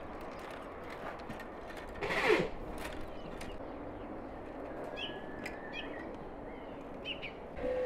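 Outdoor ambience with a steady background hiss and a brief louder sound with a falling pitch about two seconds in. A few short bird chirps come in the second half, and a dove starts cooing right at the end.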